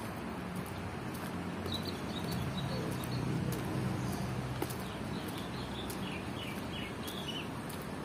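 Small birds chirping in two quick runs of short high notes over a steady low engine hum.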